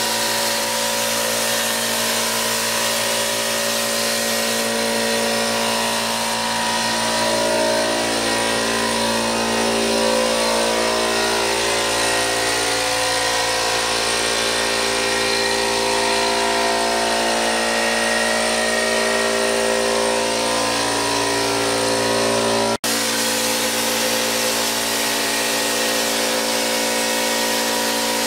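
Drywall texture hopper gun spraying thin texture onto a ceiling: a steady hiss of compressed air and spray, over the humming of the air compressor that feeds it. The sound cuts out for an instant about three quarters of the way through.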